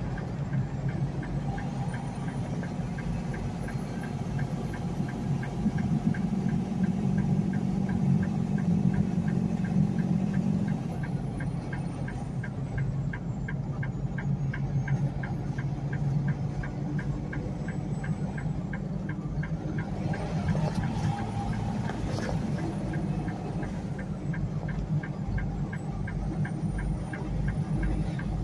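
Semi truck's diesel engine running steadily, heard from inside the cab, swelling slightly about a third of the way in, with a faint fast, even ticking over it.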